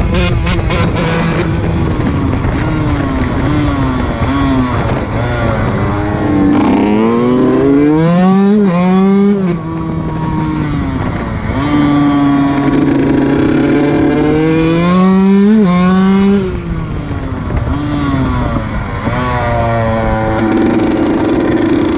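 125cc two-stroke dirt bike engine revving hard through the gears. Its pitch climbs again and again and drops back at each shift, reaching high revs twice before the rider eases off.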